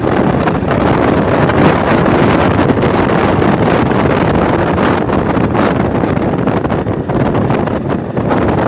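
Royal Enfield Classic 500's single-cylinder engine running on the move, with wind buffeting the microphone.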